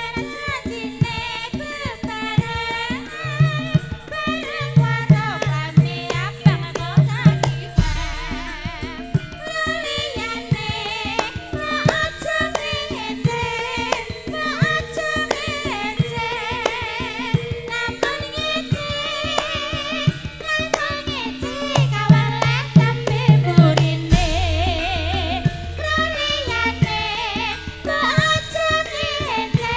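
Javanese gamelan (karawitan) playing for tayub, with kendang hand-drum strokes and a singer with heavy vibrato. A deep low note comes in about 8 seconds in and again about 24 seconds in.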